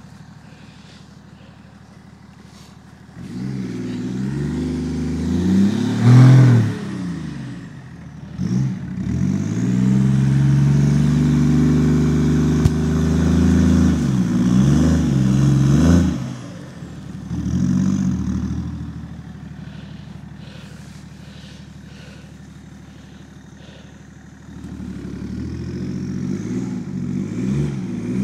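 BMW e39 530d's M57 straight-six turbodiesel revving hard in repeated surges, its pitch climbing and falling as the rear-wheel-drive car struggles for grip on a snowy, muddy slope and throws snow from its wheels. It settles to a quieter, steady run for several seconds past the middle, then revs up again near the end.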